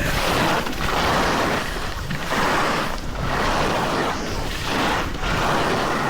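Downhill run on snow: wind rushing over the microphone and edges hissing across the snow, swelling and easing roughly once a second.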